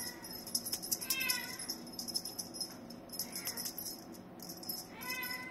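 A young cat meowing several short times, loudest about a second in, with a high, broken jingling rattle coming and going behind the calls.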